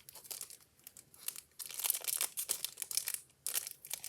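Foil Pokémon booster pack wrapper crinkling and rustling as it is handled, in irregular bursts that grow busier about halfway through.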